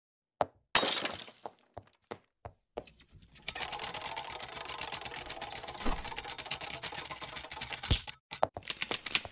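Sound effects of an animated intro: a crash with a fading tail near the start and a few single knocks, then a long stretch of rapid clattering like many small hard blocks tumbling, with two thuds, and a quick run of knocks near the end.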